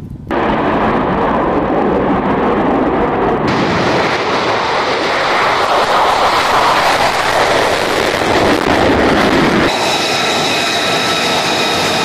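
F-35 Lightning II jet engine noise: loud and steady, growing fuller and brighter about three and a half seconds in as a jet takes off. Near the end it switches suddenly to the steady high-pitched whine of an F-35's engine as it taxis.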